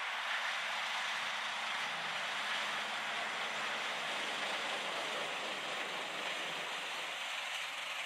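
Bandit 1850 wood chipper with a Caterpillar diesel engine running while it chips logs and blows a stream of wood chips out of its discharge chute: a steady, dense rushing noise with no separate strokes.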